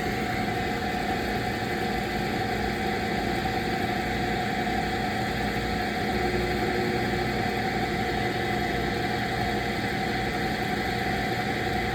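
Chiller plant machinery running steadily: a constant mechanical hum with a steady whine over it.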